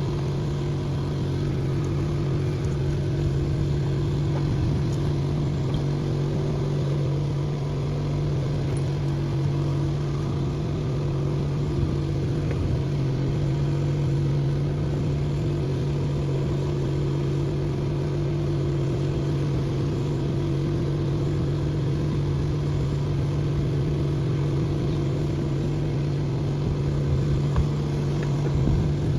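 An engine running steadily at constant speed, a low, even drone with no change in pitch.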